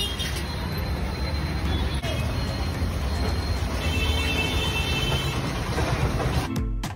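Steady roar of an LPG gas burner under a karai of sizzling frying oil, a low rumble with hiss above it. Music with a beat starts near the end.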